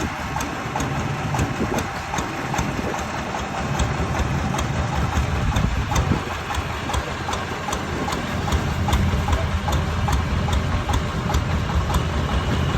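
A công nông farm truck's single-cylinder diesel engine idling steadily, with a regular sharp knock about three times a second.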